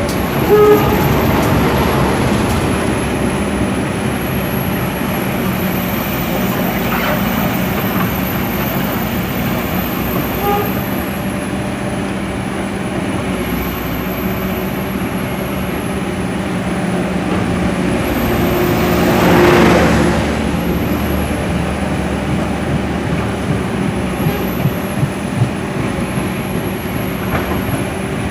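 Train running by on the rails with a steady rumble and hum. It swells in loudness about two-thirds of the way through, and a run of sharp clicks comes near the end.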